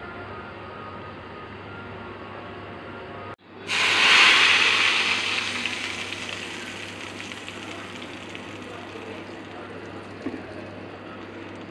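Cumin seeds sizzling quietly in hot oil for a tarka. Then a loud sizzle starts about four seconds in as the hot tempered oil is poured onto the yogurt, dying away slowly over several seconds.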